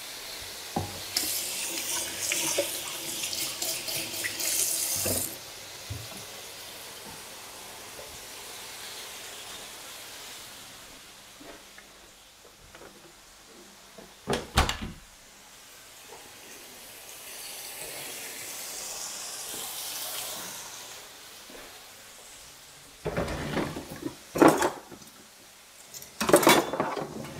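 Chicken strips sizzling on an oiled, Teflon-coated electric grill: a crackly hiss, loudest in the first few seconds, then softer. A few sharp knocks come about halfway through, and more cluster near the end.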